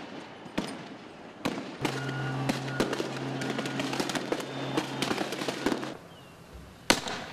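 Repeated sharp bangs and pops, many in quick succession, with one loud bang near the end. A steady low drone runs under them from about two seconds in until about six seconds in.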